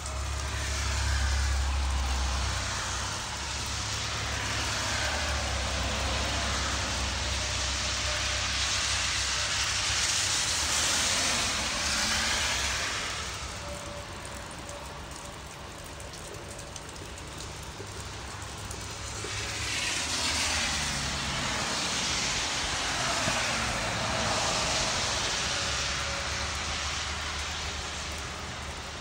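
Vehicles passing on a wet road: the hiss of tyres on wet pavement swells and fades twice, with a low rumble under the first pass.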